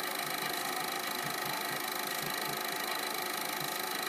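Home-movie film projector running steadily, its motor and film mechanism making an even mechanical noise with a faint constant high whine.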